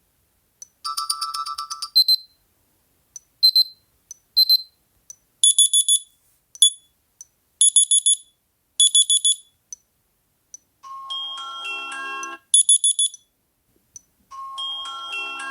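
Sony Xperia phone alarm tones played one after another, each stopped after a second or two when the next is picked. Most are rapid electronic beeping patterns; two near the end are short melodies.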